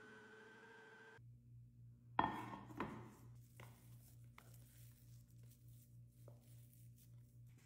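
Electric food processor motor running with a steady whine as it finishes blending a chicken mixture, then stopping about a second in. It is followed by a loud clatter of the plastic bowl and a few light knocks and scrapes as a spatula scoops the paste onto a plate.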